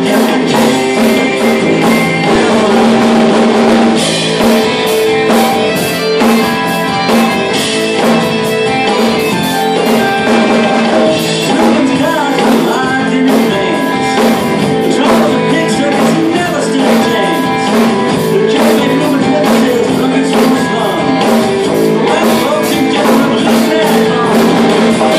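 A rock song with singing and guitar, with a Mapex acoustic drum kit played along to it: drums and cymbals struck in a steady beat.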